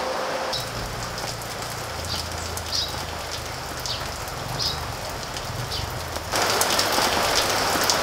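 Steady rain falling, growing heavier about six seconds in, with a few short high chirps over it.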